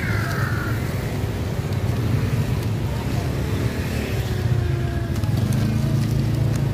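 Motor scooter engine idling steadily close by, a constant low hum, with other road traffic passing.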